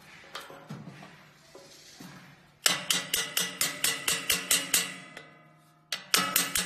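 A quick run of sharp metal-on-metal clicks, about five a second, each ringing briefly, as a steel tool works the clamp fitting on a noodle machine's stainless-steel barrel. A second, shorter run comes near the end.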